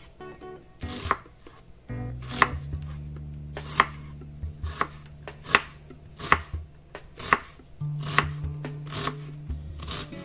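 Chef's knife chopping an onion on a wooden cutting board: about ten sharp knife strikes on the board, roughly one a second.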